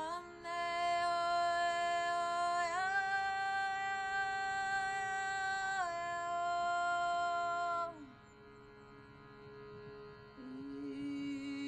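A woman singing long, held wordless tones over a steady drone from a shruti box. Her note steps up a little, drops back, and stops about eight seconds in, leaving only the drone. A new, lower sung note begins near the end.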